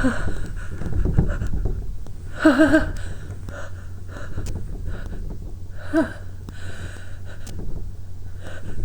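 A woman's heavy, uneven breathing with gasping catches of breath, two of them voiced (about 2.5 s and 6 s in), as lemon balm irritating her nose works up a sneeze.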